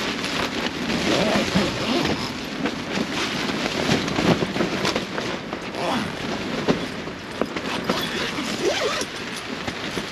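Heavy rain falling on a tent, heard from inside, with the tent fabric rustling as the door flap is handled.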